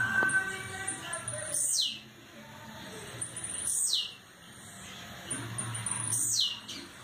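Blue-black grassquit (tiziu) singing: three sharp high notes, each falling steeply in pitch, about every two seconds, each led in by a few short high chips.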